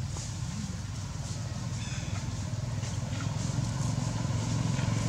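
An engine running steadily with a low, fast-pulsing hum that grows slightly louder toward the end.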